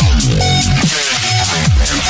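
Background electronic music with a steady beat and deep bass notes that sweep downward in pitch a little more than once a second.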